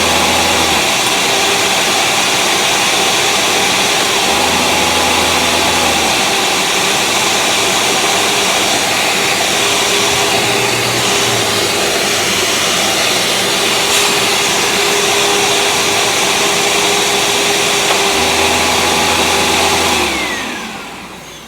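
Panasonic upright vacuum cleaner running steadily at full power. A deeper hum comes and goes several times as the brush roll is switched on and off. Near the end the motor winds down as the vacuum is switched off.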